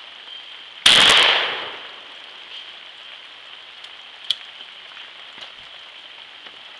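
A single 20-gauge shotgun shot about a second in, its report trailing off over about a second. A short sharp click follows a few seconds later.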